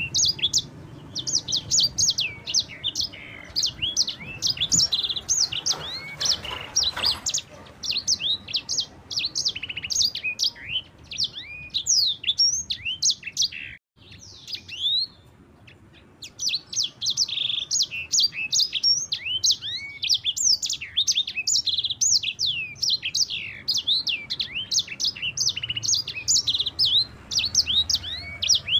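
Sanger (yellow-fronted canary) singing a long rolling song of rapid, high chirps and sweeping notes, broken by a short pause about halfway through.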